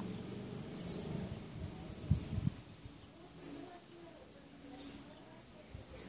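Bananaquit giving short, very high, thin call notes, five in a row at a steady pace of about one every second and a quarter, each falling slightly in pitch.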